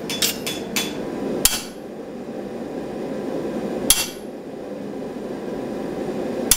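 Hand hammer striking a fullering tool held on a red-hot steel sword blade over the anvil, metal on metal. There are a few quick blows in the first second, then single heavy blows about two and a half seconds apart, over a steady background rush. The blows drive the fuller groove along the blade to join its two sections up.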